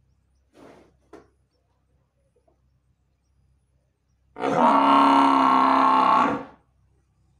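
Murrah buffalo bellowing: one loud, long call of about two seconds at a steady pitch, coming past the middle, after two faint short sounds about a second in.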